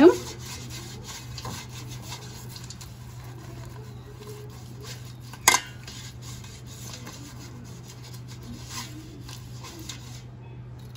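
Silicone brush rubbing and scraping around the inside of an aluminium pot as ghee is brushed on, a light continuous scratching. There is one sharp knock about five and a half seconds in.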